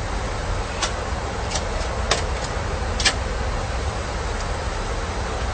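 Airbus A320 cockpit during takeoff: a steady deep rumble and airflow hiss, with a few light clicks about one, one and a half, two and three seconds in.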